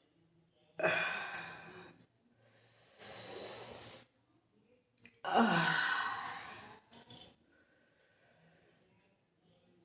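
A person yawning aloud twice, each yawn starting suddenly and trailing off, the second falling in pitch, with a long noisy breath between them and two brief clicks after the second.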